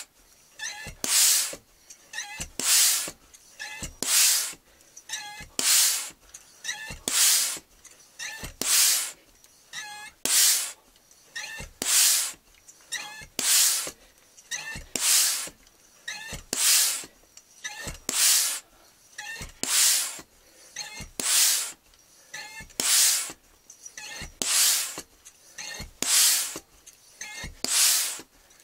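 FX three-stage hand pump being worked steadily, with a sharp hiss of air on each stroke, about one every one and a half seconds, and a faint squeak between hisses, as it fills a Weihrauch HW100 TK air rifle's cylinder from empty.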